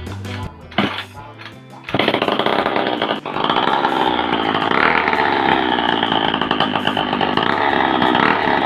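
Small 49cc two-stroke engine starting about two seconds in and running loudly with a high buzz, catching again after a brief stumble about a second later. Background music plays before it starts.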